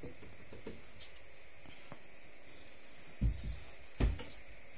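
A few faint taps, then two dull knocks about three and four seconds in, from a metal corner bracket and aluminium edge trim being handled against a plywood hardcase panel. A steady hiss runs underneath.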